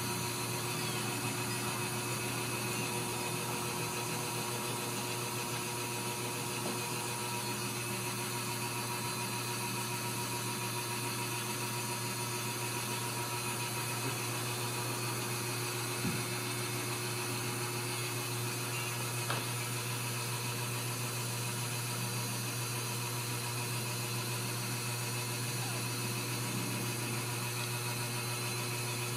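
Steady mechanical hum and hiss with a low drone and a few fixed tones, unchanging throughout, with two faint clicks, about 16 and 19 seconds in.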